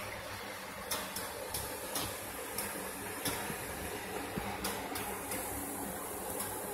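Faint steady room hum and hiss, with a few light clicks scattered through.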